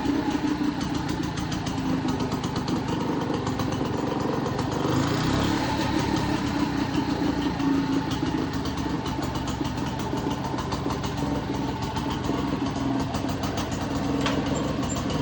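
1947 Frazer rototiller's small gasoline engine running steadily with an even firing beat, left running until it runs out of gas.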